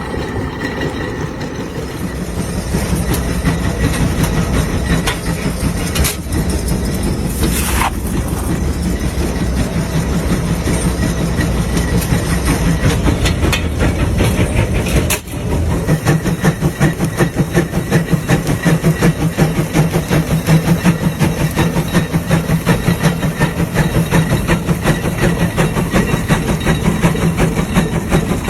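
Tractor engine running steadily with a fast, even pulsing beat, with a brief drop about fifteen seconds in.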